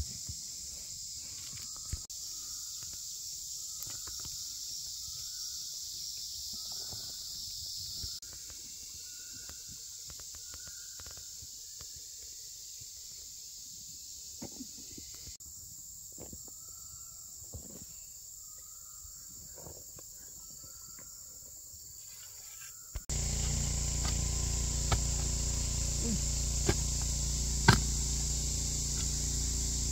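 Forest insects making a steady high-pitched drone, with a short chirp repeated about once a second and a few faint knocks. About three-quarters of the way through it gets louder as a steady low rumble joins.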